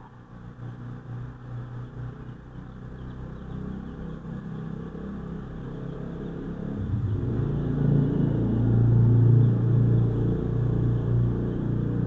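Low engine rumble of a motor vehicle, growing steadily louder and loudest near the end.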